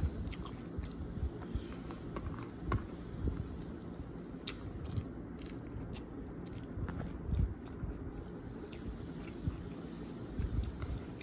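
A person chewing rice and goat curry, with wet mouth sounds and scattered small clicks.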